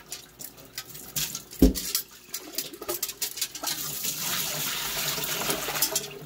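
Water sloshing in a stainless steel milk bucket, then poured out in a steady splashing stream into a stainless steel sink for the last couple of seconds. A single loud knock about a second and a half in.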